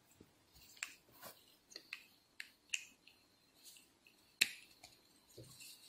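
Sharp plastic clicks and taps, about ten scattered through the stretch with the loudest about three-quarters of the way in: an inkjet cartridge being pressed and snapped into a plastic ink-suction clip.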